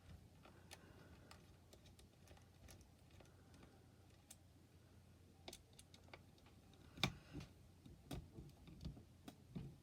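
Faint, scattered clicks and ticks of a tiny screwdriver working small screws out of a graphics card, with a few sharper taps in the last three seconds.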